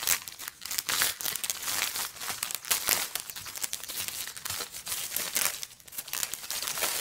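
Clear plastic shrink wrap being torn open and peeled off by hand, crinkling in a dense, irregular run of crackles that starts suddenly.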